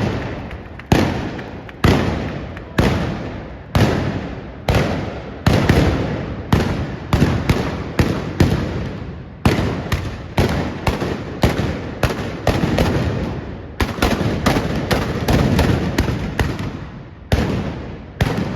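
Trabucs (Catalan blunderbusses) firing blank gunpowder charges in a rapid volley, more than one shot a second, each blast echoing and running into the next.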